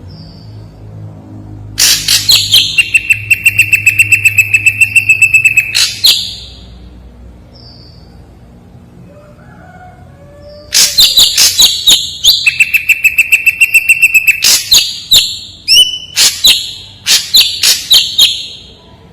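Ashy drongo singing loudly in two bouts of rapid, evenly repeated sharp notes over a held high whistle. The first bout starts about two seconds in and lasts about four seconds; after a pause of about five seconds, a longer second bout follows.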